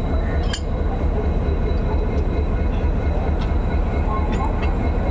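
Railway locomotive running with a steady, low, throbbing rumble, with a few short metallic clinks over it.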